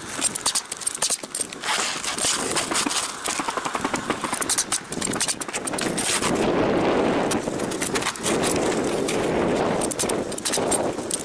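Pneumatic coil roofing nailer firing nails into asphalt shingles, sharp irregular shots mixed with the rustle and scrape of shingles being handled. About six seconds in, a steady rushing noise takes over.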